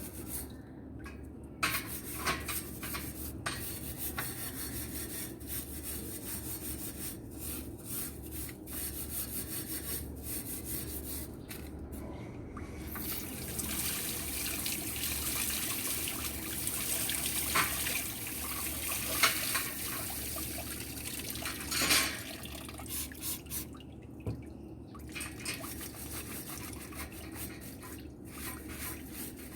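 Tap water running and splashing while barbecue grill grates are scrubbed and rinsed. The water is heaviest in the middle stretch, with a few sharp knocks along the way.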